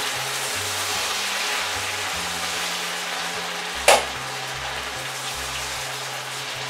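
Sweet potato gnocchi sizzling in brown butter in a skillet as they are stirred and tossed, with a single sharp knock of the spoon against the pan about four seconds in.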